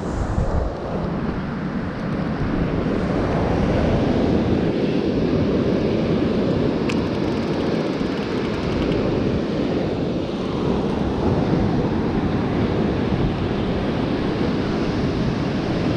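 Wind buffeting the microphone over the steady wash of surf breaking on a beach, with a single brief click about halfway through.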